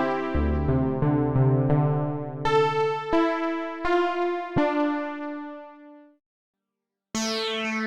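Arturia OB-Xa V software synthesizer, an emulation of the Oberheim OB-Xa polyphonic analog synth, playing a preset with struck, decaying notes: chords over a low bass line, then four single notes that ring out and fade away. After about a second of silence, a brighter patch starts near the end.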